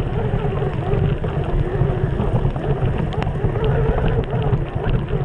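Steady wind rumble on the microphone from riding a mountain bike through a rainstorm, with scattered sharp clicks.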